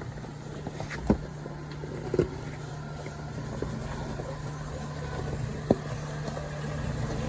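Jeep JK Wrangler engine running low and steady as the Jeep crawls over rocks on 20 psi tyres, with sharp knocks of the tyres and underside on rock about one, two and nearly six seconds in.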